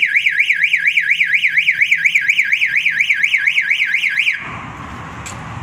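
An electronic alarm sounding a loud, fast warbling tone, about five rises and falls a second, that cuts off suddenly about four seconds in, leaving a steady background noise.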